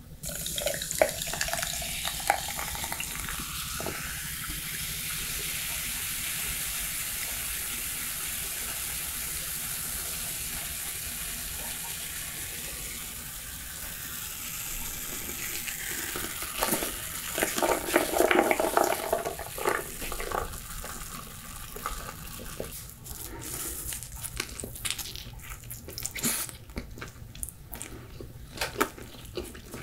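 A soft steady hiss fills the first half. Then come irregular handling noises, and in the last several seconds a bite into a pizza slice and chewing, heard as a run of sharp crunchy clicks.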